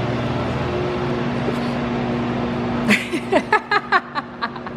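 A man laughing, a quick run of about ten short bursts starting about three seconds in, over a steady hum.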